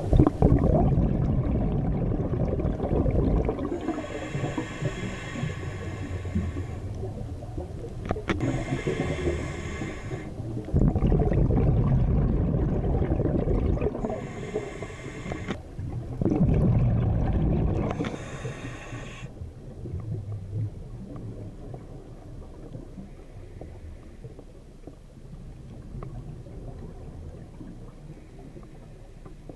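Scuba diver's regulator breathing heard underwater: short hissing inhales alternate with longer rumbling bursts of exhaled bubbles, about four breaths, then the sound drops to a quieter wash about two-thirds of the way through.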